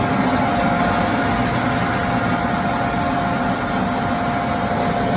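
Boiler burner's combustion-air blower running steadily during pre-purge: a constant rush of air with a steady mid-pitched whine.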